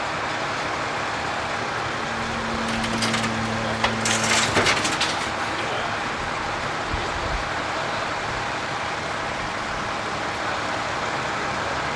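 Heavy demolition machinery running steadily. Between about three and five seconds in, a drawn-out note rises from the machine under load, with a cluster of crashes and crunches of building material breaking apart.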